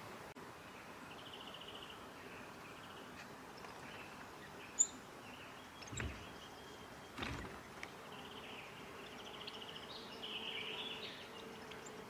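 Faint bushland ambience with distant bird trills and calls, loudest in the last few seconds, a sharp click about five seconds in, and two soft thumps about six and seven seconds in.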